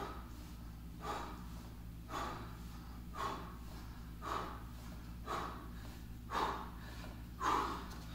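A man breathing out hard in time with bodyweight squats, about one forceful breath a second, the breaths growing louder toward the end: heavy breathing from exertion.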